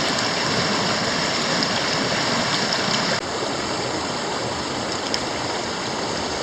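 Mountain stream water rushing over rocks, a steady even noise that drops a little in level about three seconds in.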